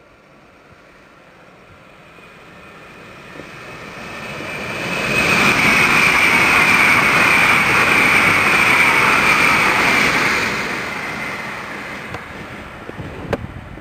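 PKP Intercity ED250 Pendolino electric multiple unit passing at speed. A rush of wheels and air swells, stays loud for about five seconds with a high whine sliding down in pitch as it goes by, then fades. A sharp click near the end.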